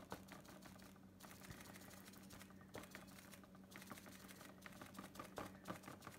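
Faint, quick, soft pats of a small damp sponge being dabbed again and again on a painted Formica countertop, blotting wet paint, over a faint steady low hum.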